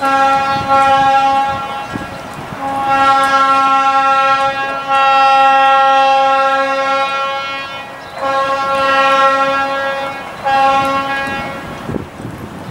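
Air horn of a Stadler diesel railcar sounding a series of about five blasts, the middle one the longest, as a warning on its slow approach to a level crossing.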